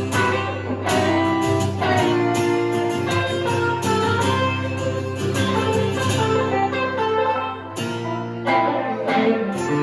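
Guitars playing an instrumental passage, with plucked and strummed notes over a held bass and a chord change about eight seconds in.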